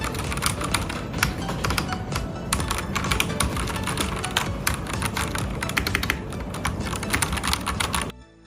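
Fast typing on an 82-key mechanical keyboard, a dense run of key clicks over background music, stopping abruptly near the end.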